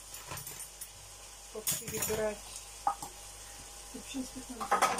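Glasses and cutlery clinking and clattering as they are picked up and put away, with the loudest clatter near the end, over a faint steady sizzle of carrots frying in a pan.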